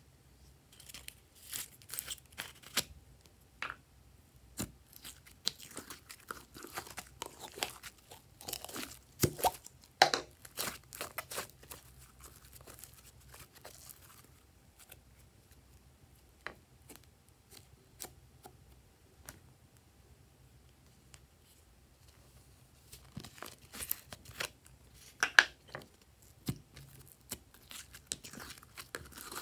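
Sticky slime stretched, pulled and squeezed by hand, making rapid crackling and popping clicks. The crackling comes in two spells, thinning out to a few scattered clicks in the middle.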